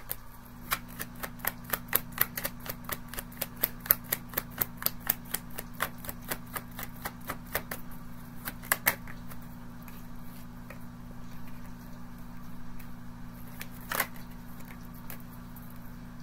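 A deck of tarot cards being shuffled by hand: a quick, even run of card taps, about four a second, that stops about nine seconds in, then a single sharper tap near the end. A steady low hum runs underneath.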